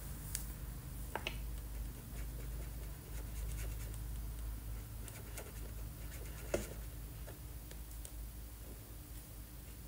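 Felt-tip marker scratching back and forth on paper while colouring in, with a few light taps, the sharpest about two-thirds of the way through.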